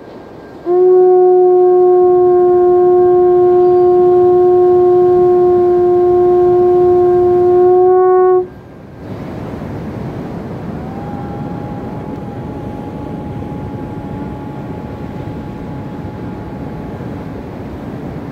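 A horn blown by mouth, holding one long steady note for about eight seconds that cuts off sharply. A couple of seconds later comes a fainter, higher note, held for about six seconds, over the wash of ocean surf.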